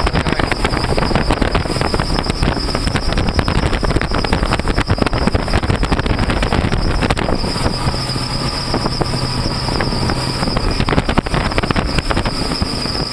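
Twin Honda 200 hp four-stroke outboards driving the boat at about 32 knots under high throttle, mixed with wind rushing past and many short knocks of the hull on the water.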